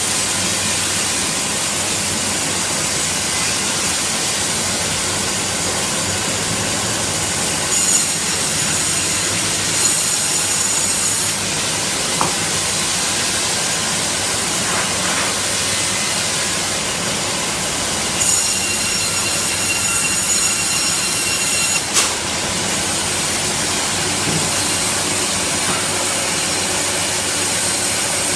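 Sawmill line machinery running with a steady, loud mechanical noise. High-pitched whining tones come in twice, about eight to eleven seconds in and again from about eighteen to twenty-two seconds in, with a couple of sharp knocks.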